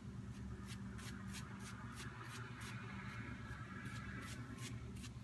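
Boar-bristle shaving brush working latherless shave soap onto the face in quick, even scratchy strokes, about three a second, over a faint steady hum.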